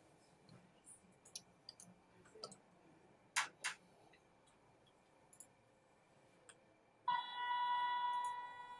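Light clicks of handling, with two sharper clicks about three and a half seconds in, as a wire terminal is fitted into the pull tester's grips. About seven seconds in, the motorized pull test stand's drive starts with a steady pitched whine as it pulls the terminal toward 50 N.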